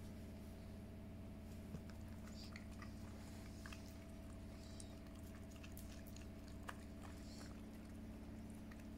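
A puppy licking and lapping at a cut lemon half, making faint, scattered wet smacking clicks. A steady low hum runs underneath.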